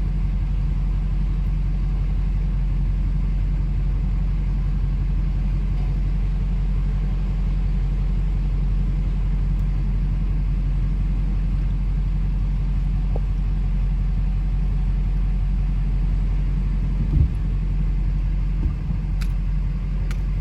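Small diesel engine of an old boatyard travel lift, a converted farm irrigation-pump diesel, running steadily as a low drone while the lift carries the boat. A short knock sounds near the end.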